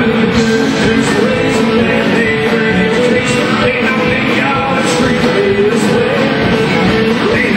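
Live country-rock band playing at full volume: electric guitar, acoustic guitar, bass and a drum kit, with cymbal and drum hits keeping a steady beat.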